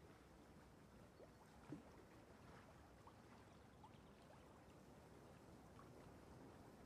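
Near silence: a faint steady hiss of room tone, with a few faint brief chirps and one small blip about two seconds in.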